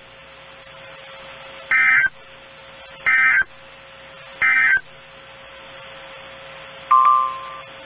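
Emergency Alert System end-of-message code: three short, identical digital data squawks about a second and a half apart, signalling that the alert message is over, over a steady hum. A brief beep sounds near the end.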